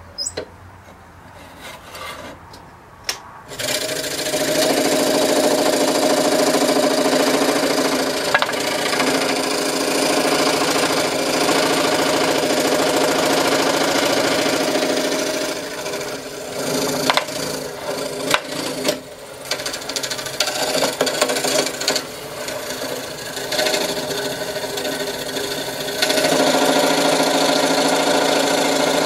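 Scroll saw with a spiral blade sawing through a quarter: after a few clicks the saw starts about four seconds in and runs steadily with a rasping cut. Partway through the sound dips and wavers with sharp ticks, then runs loud and steady again near the end.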